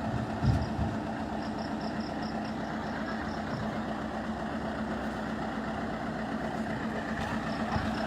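Motor vehicle engine running steadily, with one brief low thump about half a second in.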